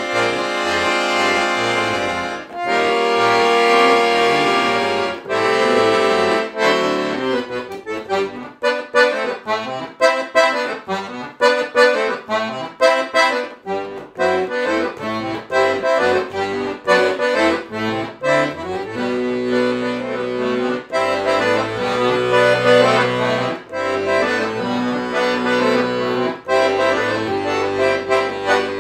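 Piano accordion playing solo: held chords for the first several seconds, then a run of quick, short detached notes, and from about two-thirds of the way through a steady rhythmic figure over low bass notes.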